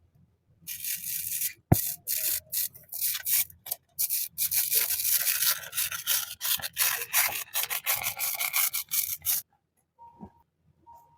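Hands rubbing and rustling packaging in quick scratchy strokes, with one sharp click about two seconds in; it stops a couple of seconds before the end.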